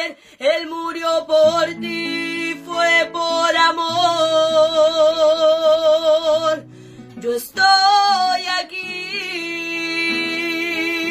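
A woman singing long held notes with vibrato, accompanying herself on a strummed classical guitar with a capo. Her voice breaks off briefly about seven seconds in, then comes back in while the guitar carries on.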